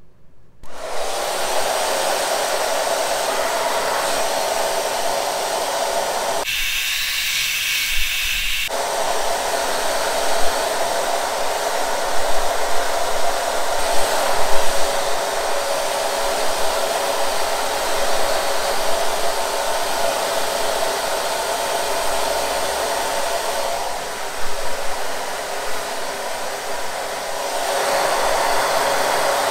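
Handheld hair dryer switched on about a second in and blowing steadily on hair. For about two seconds, a quarter of the way through, its sound turns thinner and higher before settling back.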